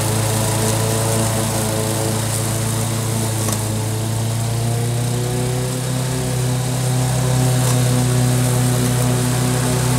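Wolf-Garten ride-on lawn mower engine running steadily with its blades cutting tall, wet grass. The engine dips a little in pitch about halfway through, then runs louder near the end as the mower comes back toward the microphone.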